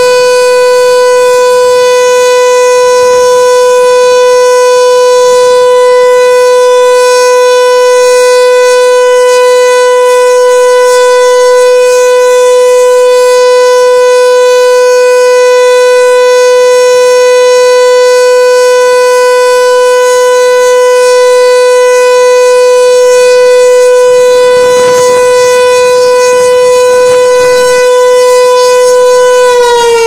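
American Signal T-121 electromechanical tornado siren sounding a steady alert tone, one loud unbroken pitch with many overtones, as in a monthly test of the warning system. Right at the end the pitch starts to fall as the siren begins winding down.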